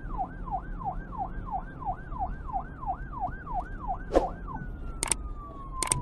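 Siren in a fast yelp, sweeping down about three times a second over a steady low rumble. About four seconds in there is a short whoosh, and the yelp gives way to a single slowly falling tone. Two sharp clicks come near the end.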